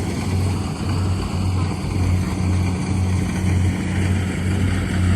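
An engine running steadily, with a strong low drone that swells and fades in a regular beat about every 0.7 seconds.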